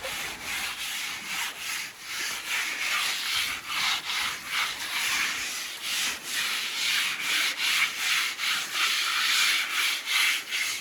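Coarse abrasive rubbed by hand back and forth over a boat hull, scrubbing off the marine growth that slows the boat, in steady rasping strokes about two to three a second.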